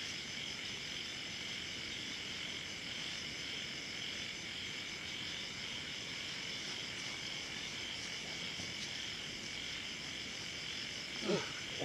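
Steady night chorus of crickets and other insects trilling without a break. A brief sliding pitched sound comes near the end.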